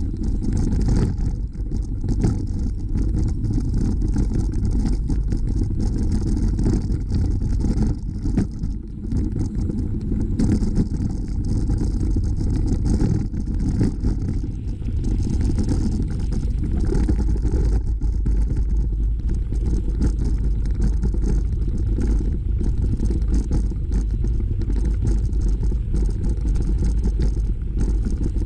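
Wind and ride noise on a bicycle-mounted camera's microphone while riding a dirt and gravel trail: a steady low rumble, with small knocks and rattles from the bumpy surface.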